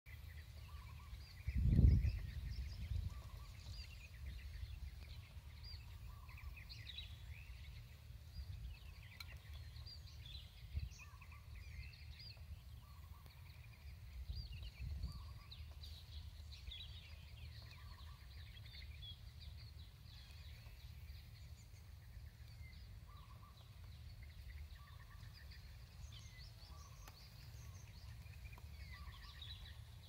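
Many small birds chirping and twittering without pause, with a lower, softer call repeating every second or two. Wind on the microphone adds a steady low rumble, with a loud low thump about two seconds in.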